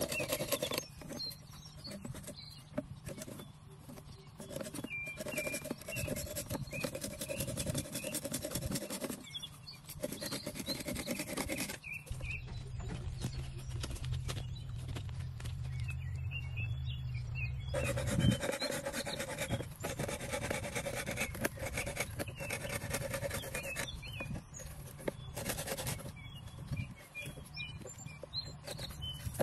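Small hand saw cutting through a green bamboo pole with repeated back-and-forth strokes.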